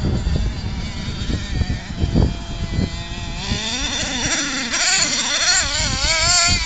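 CEN Genesis nitro RC monster truck's small glow engine revving, a high-pitched whine that rises and falls with the throttle from about three seconds in and is loudest near the end. Before that there is a low, uneven rumbling noise.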